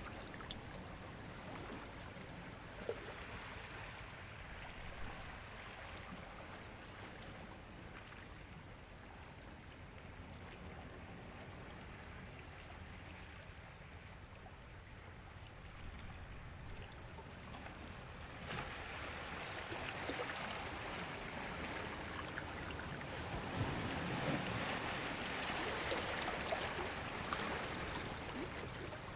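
Ocean waves washing in, a steady rush of water that swells louder about two-thirds of the way through.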